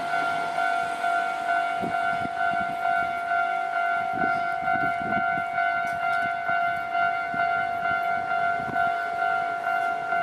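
Japanese railway level-crossing warning bell: an electronic alarm sounding one steady, repeating ding about one and a half times a second, the signal that the crossing is closing for an approaching train.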